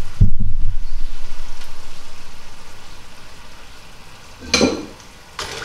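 Potato slices frying in hot oil in an electric deep fat fryer: a steady sizzle that slowly fades as the last of the water cooks out of the potato. A low knock comes just after the start, and a short clatter about four and a half seconds in.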